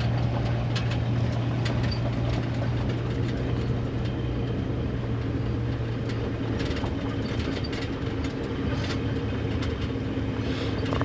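Open safari game-drive vehicle driving along a bush track: a steady engine hum under road noise, with scattered rattles and knocks from the vehicle. The hum eases off about two thirds of the way through.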